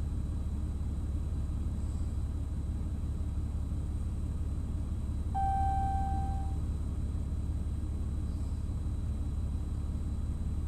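Steady low rumble, with one clear tone held for about a second about halfway through.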